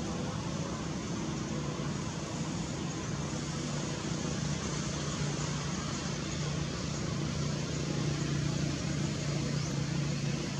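Steady outdoor background noise with a low, even hum, like distant road traffic.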